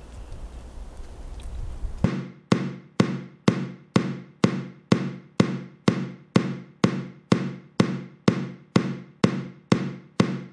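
Outdoor background noise, then about two seconds in, background music begins: a steady beat of struck notes about twice a second, each ringing briefly.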